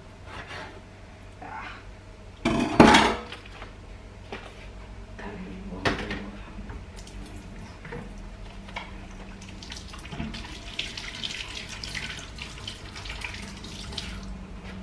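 Kitchen sink tap running, with dishes and utensils clattering and clinking. There is a loud clatter about three seconds in.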